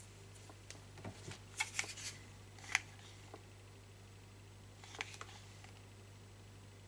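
Quiet room tone with a steady low hum, broken by a handful of light clicks and taps, loudest a little under three seconds in, with a few more about five seconds in.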